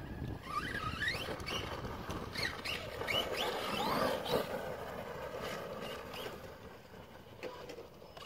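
An ARRMA Outcast 4S RC truck's brushless electric motor whining up in several short rising bursts as it is throttled and drives off. It fades in the second half.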